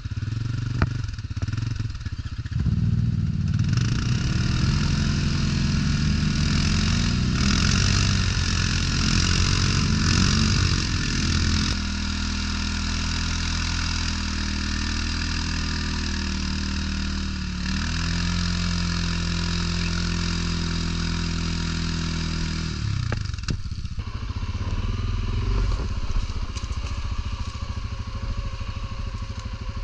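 ATV engine running under way, its pitch rising and falling with the throttle for the first dozen seconds, then holding steady for about ten seconds before dropping back near the end.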